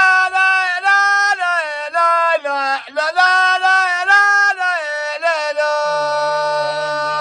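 A man singing a traditional Arabic song without instruments, holding long, ornamented notes that break and resume every second or so. Near the end a second, lower voice comes in under the held note.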